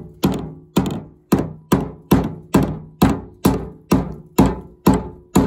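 Small ball-peen hammer striking the discoloured plastic outlet neck of an old radiator, about a dozen hard blows at roughly two a second, each a sharp knock with a brief ring. The neck holds up: the discoloured plastic is still strong, not brittle.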